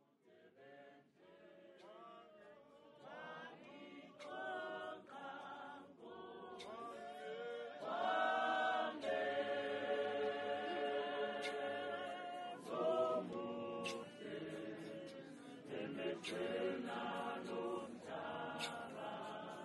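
Church congregation singing a hymn together in many voices, starting faintly and growing louder and fuller about eight seconds in, with a few sharp taps now and then.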